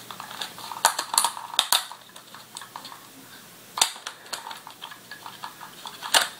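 Sharp clicks and clacks of a spring-powered BB pistol's slide and spring being worked by hand while trying to fit the slide back onto the frame. The clicks come in a bunch over the first two seconds, then one sharp click near four seconds and another bunch near the end.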